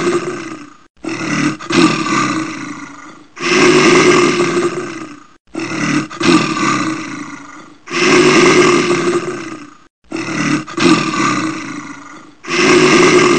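An animal roar sound effect played on a loop: one long, rough roar followed by two shorter ones, the cycle repeating about every four and a half seconds.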